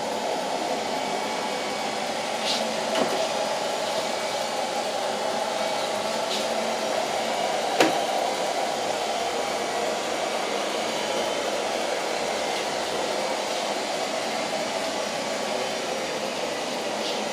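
Robot vacuum cleaner running with a steady whir. A few short knocks sound over it, the loudest about eight seconds in.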